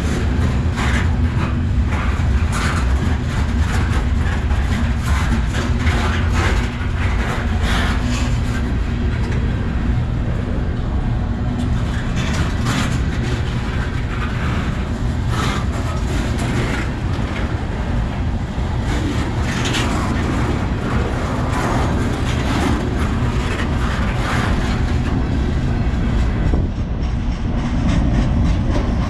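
Freight cars rolling past close by: a steady rumble of steel wheels on the rails, with frequent irregular clicks and clanks as the wheels pass over rail joints.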